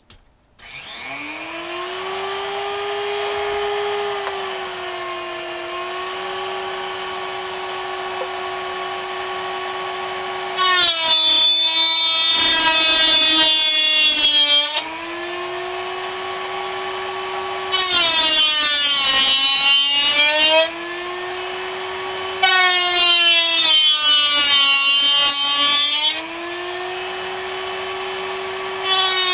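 A Dremel rotary tool winds up about half a second in and runs at speed with a steady high whine. Three times, for a few seconds each, and again at the very end, its cutoff wheel bites into the thin aluminium wall of a soda can with a loud harsh screech, the motor's pitch dropping under the load.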